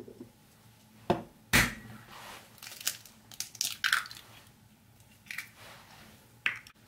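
A raw egg being cracked: two sharp knocks of the shell against a hard edge, then a run of crisp crackles as the shell is pulled apart over the bowl, with a couple of small clicks later.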